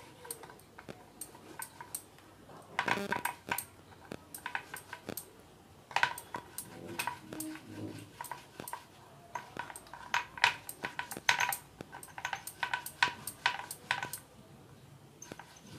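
Hands rolling rice-flour dough into thin ropes on a wooden board: irregular light taps and clicks against the board, some in quick runs.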